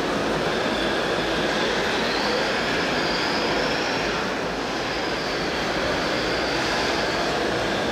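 Radio-controlled model vehicle's small electric drive motor and gearbox running, a faint high whine rising and falling twice over a steady wash of noise.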